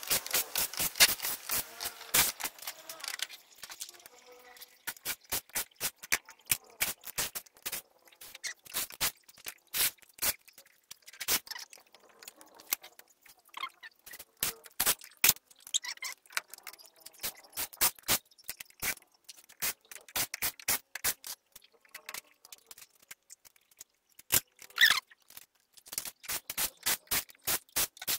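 Electric screwdriver backing screws out of an LCD TV's back cover and metal panel frame: runs of sharp clicks, a few a second, with rattling and scraping of plastic and metal between them.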